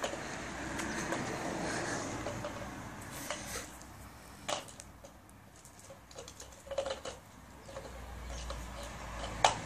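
Siberian husky pushing a treat ball across concrete with her nose, the ball knocking and scraping on the ground in irregular clicks and taps.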